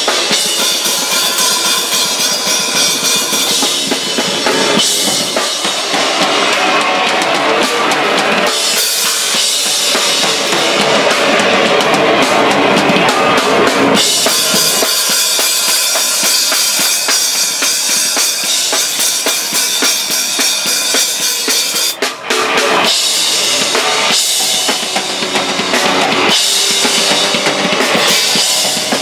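Live band playing loud and close: a drum kit with bass drum, snare and crashing cymbals, over electric guitar and bass guitar. The band stops for a split second about two-thirds of the way through, then comes straight back in.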